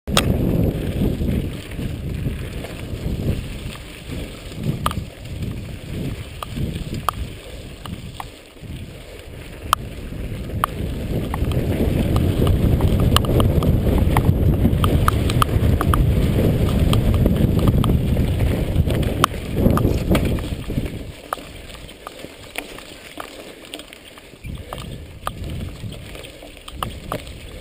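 Mountain bike ridden on a dirt singletrack: wind rushing over the camera's microphone, with tyres rolling on the dirt and the bike rattling in sharp clicks over bumps. The wind rush is strongest through the middle and eases off near the end, leaving the tyre noise and clicks.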